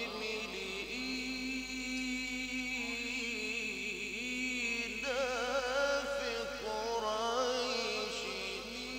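A male Quran reciter's voice in the melodic mujawwad style, drawing out long, wavering, ornamented notes. The line climbs to a higher ornamented passage about five seconds in.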